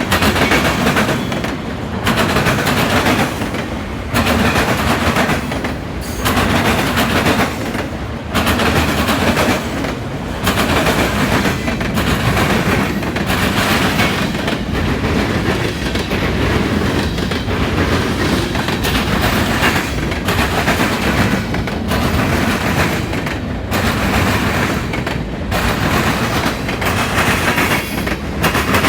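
Intermodal freight train cars rolling past, their wheels hammering over a railroad diamond crossing in a loud, continuous clatter that dips briefly about every two seconds as car after car goes by.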